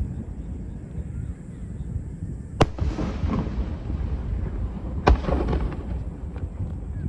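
Aerial fireworks shells bursting: two loud bangs about two and a half seconds apart, each followed by a trail of crackling and rumble, over a steady low rumble.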